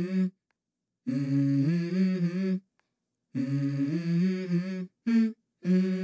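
Intro music made of a wordless hummed vocal melody. It comes in phrases of about a second and a half, with short silent gaps between them. A brief note falls near the end, and the next phrase starts just after it.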